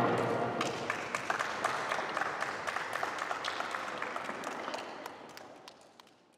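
A group of people applauding, with separate hand claps standing out, fading away near the end.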